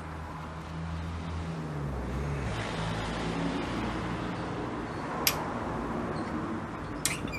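A Hi-Lift farm jack gives three sharp metallic clicks as its handle is worked: one at the start, one about five seconds in and one near the end. Under them runs a steady hum of vehicle traffic.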